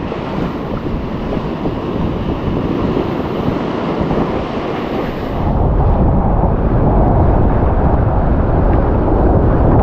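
Wind buffeting the microphone: a steady rushing, rumbling noise that grows louder about halfway through as a stronger gust hits.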